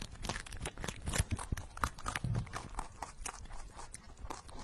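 A rabbit biting and chewing a cucumber on the vine: quick, irregular crunching clicks, several a second.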